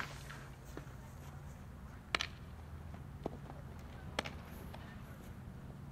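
Softball smacking sharply into a fielder's leather glove twice, about two seconds apart, with a fainter tap between; a steady low hum runs underneath.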